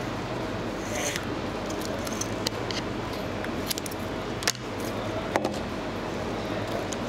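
Nylon monofilament fishing line being handled off its spool and snipped with scissors: a few small clicks and ticks, the sharpest about four and a half and five and a half seconds in, over a steady background hum.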